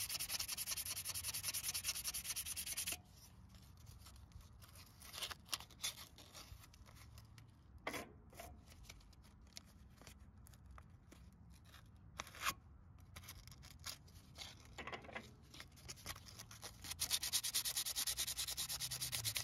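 Sandpaper rubbed by hand over rusty metal, cleaning rust off the ignition coil and flywheel magnet faces of a riding mower engine. Rapid back-and-forth strokes for about the first three seconds and again near the end, with scattered light scrapes and clicks in between.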